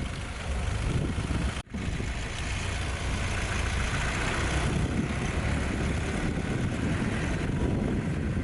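Safari vehicle's engine running, a steady low rumble. The sound drops out for a split second about one and a half seconds in.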